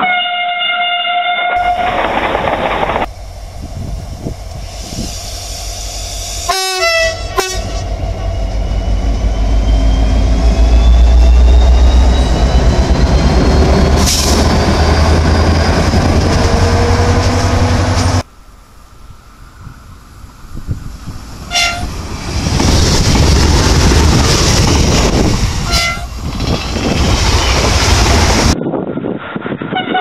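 Trains passing one after another. A train horn holds a chord briefly at the start. A Vossloh Euro 4000 diesel locomotive then passes with a loud, heavy engine rumble and wheel noise on the rails. Later, two short horn blasts sound a few seconds apart as another train passes.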